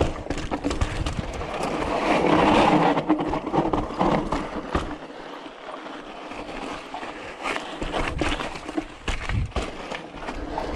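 Yeti SB6 mountain bike ridden over rough rock and dirt: tyres rolling and scrubbing, with frequent clicks, knocks and rattles from the bike as it hits the rocks. The noise swells to its loudest about two seconds in.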